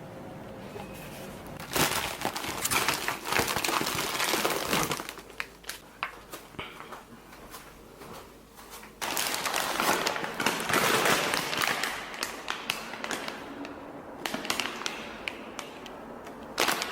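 Crinkling and crackling of something being handled, with many fine clicks, in three bursts: about two seconds in, again around the middle, and once more near the end.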